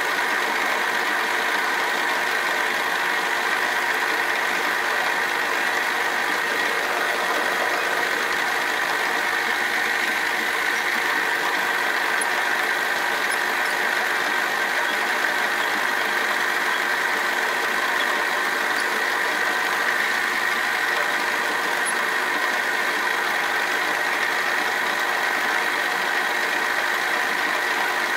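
Milling machine running steadily, its spindle turning an end mill that cuts into an aluminum block, a constant machine whine.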